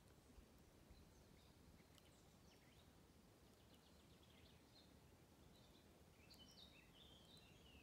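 Near silence with faint birdsong: scattered high chirps, and a short run of song notes near the end.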